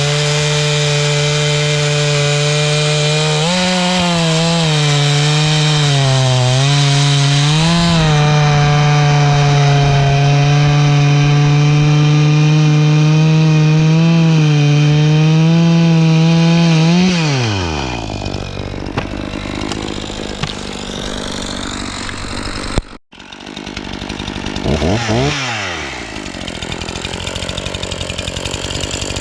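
Echo CS-490 chainsaw's 51cc two-stroke engine, with a modified muffler, running at full throttle while cutting through wood; its pitch dips briefly under load. About two-thirds of the way through the throttle is released and the engine drops to a low idle. After a brief gap in the sound, the engine is blipped up and down.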